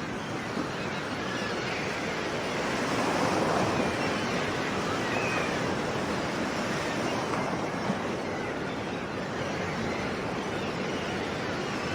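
Sea waves breaking and washing on a shore, a steady rush of surf that swells louder for a couple of seconds a few seconds in, then eases.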